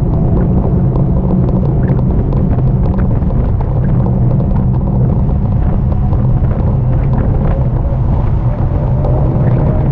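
Steady, loud rumble of wind and road noise on a riding e-bike's camera microphone, with a faint thin whine underneath that edges up in pitch near the end.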